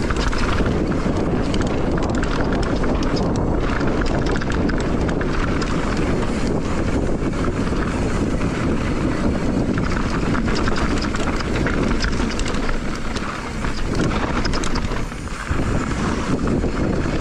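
Mountain bike rolling fast down a dirt trail: wind rushing over the microphone and knobby tyres on the dirt, with frequent short rattles and knocks from the bike over bumps.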